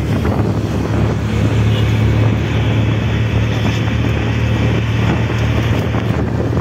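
Auto-rickshaw engine running steadily at road speed with a low hum, heard from inside the open-sided cab, with wind rushing past the microphone.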